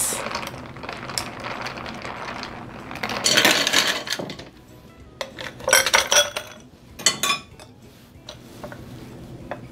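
Ice clinking against glass: a metal spoon stirring ice in a glass pitcher of iced tea, then ice cubes dropped into a tall drinking glass, with a dense rattle about three seconds in and sharp clusters of clinks around the middle.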